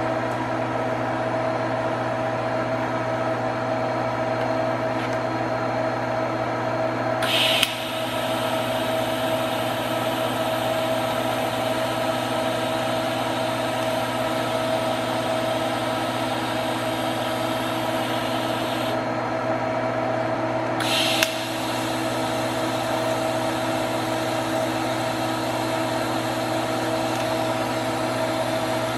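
TIG welding: the arc is struck about a quarter of the way in with a short sharp crackle, then hisses steadily for about ten seconds before stopping. A second short crackle comes about two-thirds of the way through. A steady machine hum from the welding setup runs underneath throughout.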